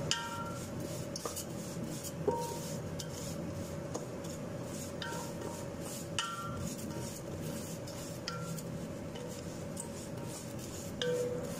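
A metal utensil stirring small sharia noodles frying in oil in a pan, scraping and clinking against the pan every second or two, over a steady hiss and a faint steady hum.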